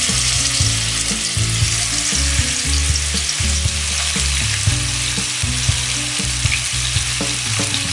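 Pieces of aar catfish, rubbed with turmeric and salt, frying in hot oil in a kadai: a steady, loud sizzle.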